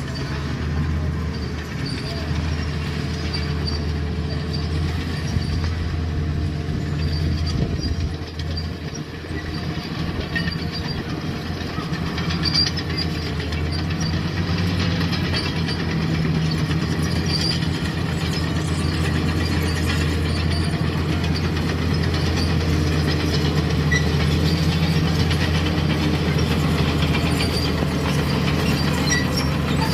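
Cat bulldozer's diesel engine running steadily while working, with scattered clanks and squeaks from the steel tracks. The engine eases briefly about eight seconds in, then runs a little louder.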